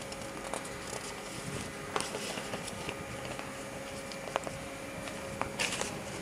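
Room background with a steady faint hum and hiss, broken by a few small clicks and a brief rustle near the end.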